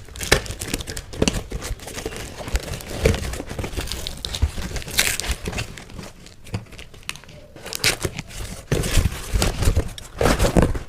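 Packaging being crinkled and torn open by hand as a parcel is unboxed: irregular rustling, crackling and ripping with sharp scratchy snaps.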